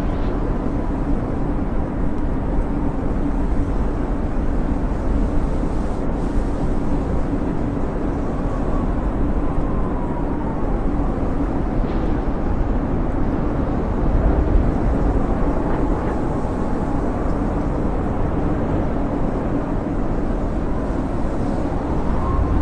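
Snowstorm wind blowing steadily with a deep rumble, and a faint high whistle that rises and falls now and then.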